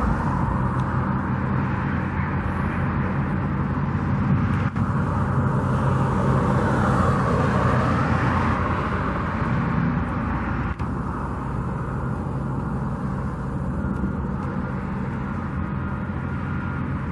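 Steady low engine rumble with a constant hum, and a rushing hiss over it.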